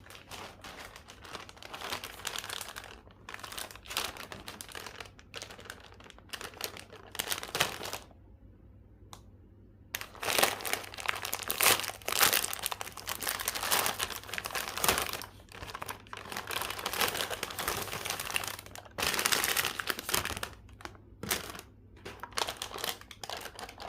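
Plastic biscuit-packet wrapper crinkling as it is handled and opened, in irregular bursts with a short pause about eight seconds in.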